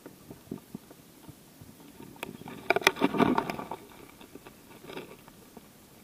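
Crackling, scraping and clicking close to the microphone, densest from about two to nearly four seconds in, with a few more clicks near five seconds.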